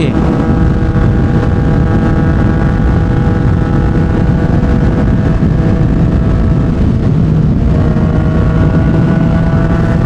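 Yamaha MT-09's inline three-cylinder engine breathing through a Yoshimura R55 slip-on exhaust, running steadily while riding, with wind noise on the microphone. Its note climbs slightly in the last couple of seconds.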